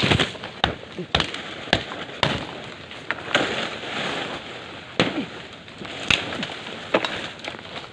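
Irregular sharp knocks and cracks with rough crashing noise between them: a scuffle with a snared wild boar, picked up by a phone lying on the ground.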